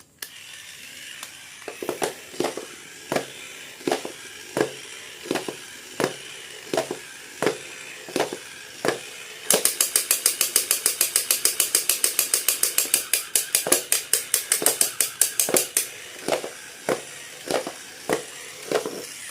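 A series of sharp clicks, a second or so apart, then a fast run of brighter clicks about five a second for about six seconds, then scattered clicks again.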